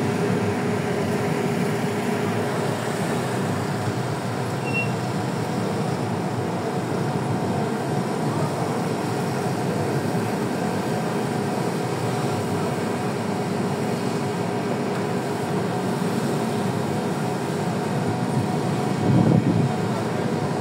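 Steady drone of a fishing vessel's engines and deck machinery, an even noise with a faint steady hum in it. A brief louder low rumble comes near the end.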